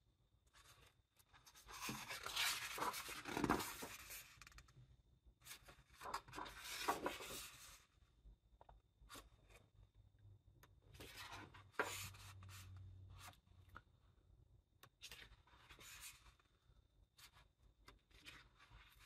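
Pages of a large illustrated book being turned by hand: two long paper rustles in the first half, a sharp tap a little past the middle, and a shorter rustle later, with light brushes and ticks of paper between.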